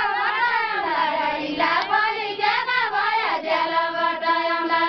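Women singing a Deuda folk song in high voices, the melody sliding up and down, then settling into a long held note about three and a half seconds in.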